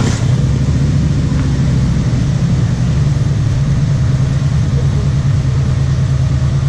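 Motorcycle engine idling, a steady low throb.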